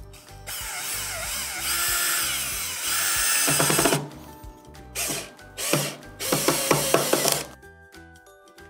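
Cordless drill with a Phillips bit driving wood screws into the desk's underside. The motor runs for about three seconds, its pitch wavering, then breaks into rapid clicking as the screw seats, the sound of the drill's clutch slipping. Three shorter bursts of driving and clicking follow near the end.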